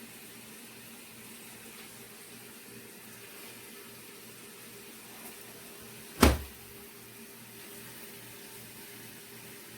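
Portable washing machine running with a low steady hum and a regular pulse, and one sharp knock about six seconds in.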